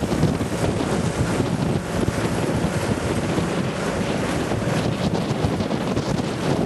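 Wind buffeting the microphone over the running and jolting rattle of a riding lawnmower towing a trailer.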